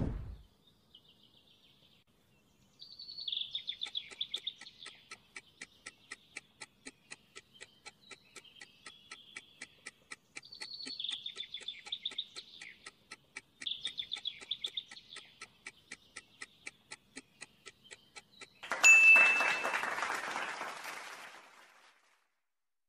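Countdown-timer sound effect: steady clock ticking over birdsong trills, as the quiz timer runs down. Near the end a loud ringing cue sounds as the countdown runs out and fades over about three seconds.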